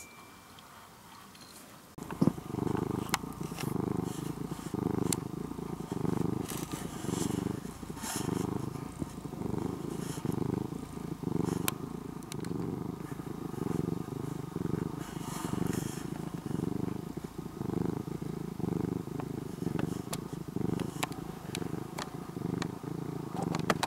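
Domestic cat purring at close range, a low rumble that swells and fades with each breath, a little more than once a second. It starts about two seconds in.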